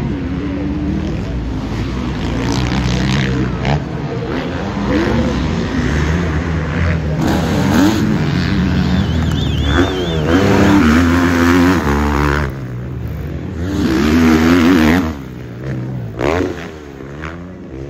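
Several motocross bikes racing on the track, their engines revving up and down through gear changes as they pass. The sound swells loudest as bikes pass close, about ten seconds in and again near fourteen seconds, then falls in pitch as a bike goes away.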